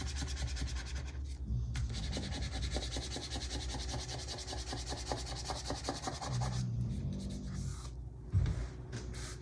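Fingers rubbing stickers down onto planner paper in quick, fine strokes for about six seconds, then a single soft knock near the end.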